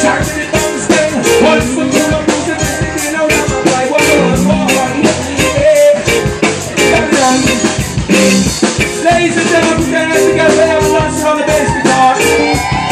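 Live reggae band playing, with drum kit, bass guitar, electric guitar and keyboard and a singer's voice over the top.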